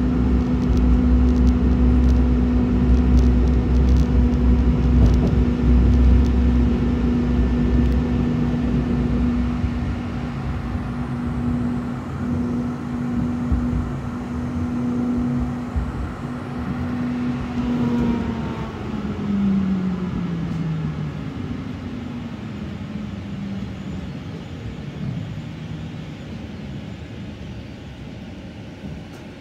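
Electric tram running, heard from inside the car: a steady motor hum over a low rumble of the wheels on the rails. About two-thirds through the hum falls in pitch and the whole sound grows gradually quieter as the tram slows down.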